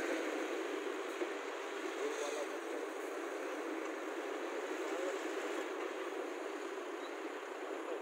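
Steady diesel engine running from a Hyundai crawler excavator and a tipper truck drawing up beside it, with no separate knocks or clanks.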